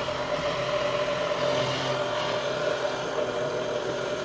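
Immersion blender running steadily with an even motor whine, its blade churning and puréeing thick vegetable soup in a pot.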